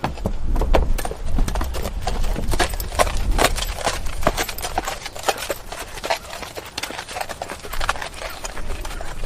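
Horse hooves clip-clopping: a fast, irregular run of sharp hoof strikes, several a second, over a low rumble.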